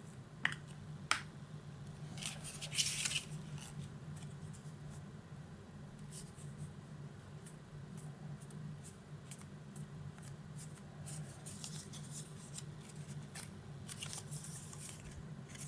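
Paper and cardstock being handled and pressed down by hand: small scratchy rustles throughout, with two sharp clicks about half a second and a second in and a longer burst of rustling around three seconds in, over a low steady hum.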